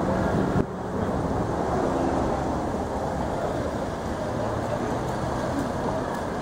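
Steady city street noise of traffic, with wind on the microphone.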